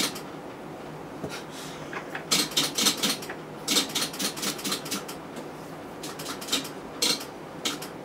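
Ward turret lathe's peg-pin control cabinet clicking in quick rattling bursts as it steps through its program in auto mode, with pauses of about a second between bursts.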